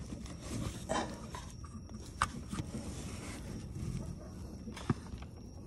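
Hand-handling noise from working in a tight space around hoses and a coolant-line fitting: faint rubbing and scraping, with two sharp clicks, one about two seconds in and one near the end.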